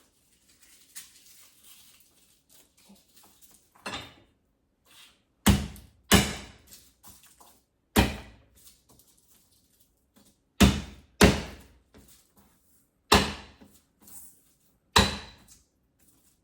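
A kitchen knife or cleaver striking a cutting board in heavy, separate chops through half a head of garlic. There are about seven loud thunks at an uneven pace, some in quick pairs, with light rustling of garlic skin before them.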